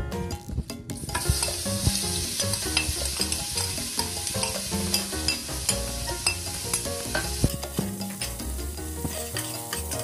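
Chopped onions dropped into hot oil in a stainless steel pot and sizzling, starting about a second in. A metal spoon scrapes the onions out of a bowl and a spatula stirs them, adding scattered clicks and scrapes.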